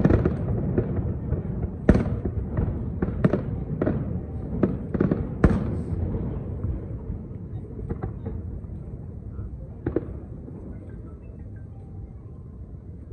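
Aerial firework shells bursting: a quick string of sharp bangs over a low rumble. The bangs thin out and grow quieter through the second half.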